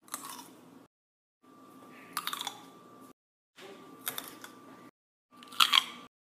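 Green grapes bitten between the teeth, each bite a short, sharp crisp crunch. There are four bites in separate takes with dead silence between them, and the loudest bite comes near the end.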